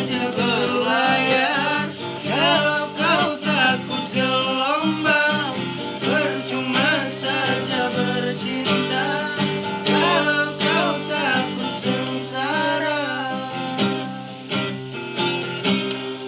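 A singer's voice with acoustic guitar accompaniment, the guitar strummed and picked under a melodic vocal line; the song fades near the end.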